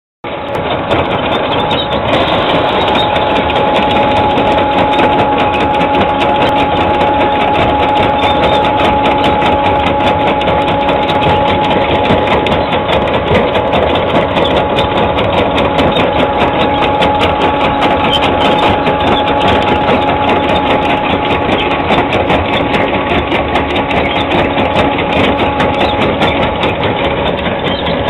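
Stone-laying machine running steadily: the engine and hydraulics keep up a steady whine while the chain conveyor rattles fast and evenly as it drags rocks up its ramp.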